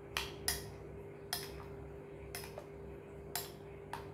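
Metal spoon clinking against a glass bowl while stirring thick yogurt raita: about seven irregular clinks, the loudest half a second in, over a faint steady hum.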